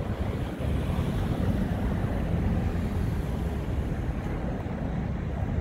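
Wind buffeting the microphone: a steady low rumbling noise with no distinct tones.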